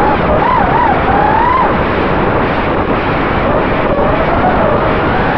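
Racing quadcopter's four Cobra 2207-2600 brushless motors and HQ tri-blade props whining under throttle over a loud rushing noise, heard from a camera on the drone. The whine wavers quickly up and down in pitch early on, then glides more slowly, following the throttle.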